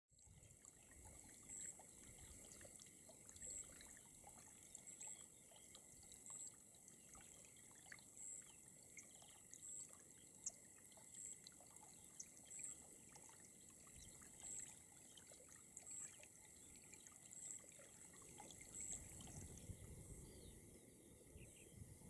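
Near silence: faint outdoor background hiss, with a faint, high-pitched short note repeating about every second and a half.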